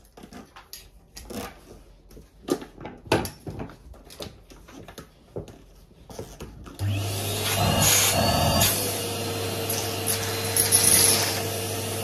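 Clicks and knocks of the vacuum hose and metal wand being handled, then about seven seconds in a Numatic Henry cylinder vacuum cleaner switches on, its motor whine rising in pitch as it spins up and settling into a steady hum. Near the end small bits of debris rattle up the metal wand.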